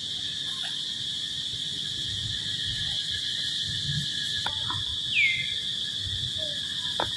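Steady high-pitched insect drone in the forest, with a short falling chirp about five seconds in and a couple of faint clicks.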